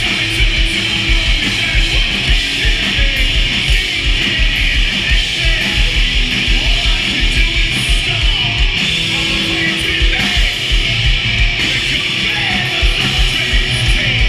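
A punk rock band playing live, heard from in the crowd: loud distorted electric guitars over a fast, steady drum beat.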